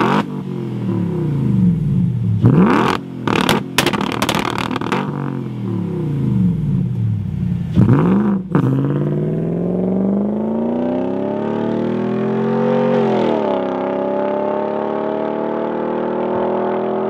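BMW E53 X5 engine revving through a straight-through custom exhaust, the revs falling away after each blip, with a rapid string of sharp pops and bangs from the exhaust: the backfires of its WOT-box fireball setup. About halfway through the revs climb steadily for some four seconds, then ease back to a steady run.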